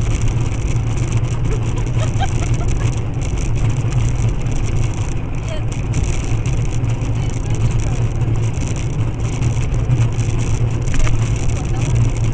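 Steady low rumble of engine and road noise inside a moving car, with faint voices under it.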